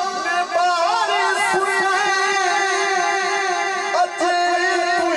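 A man singing a naat into a microphone, holding long notes with wavering, ornamented pitch. The line breaks briefly about half a second in and again about four seconds in.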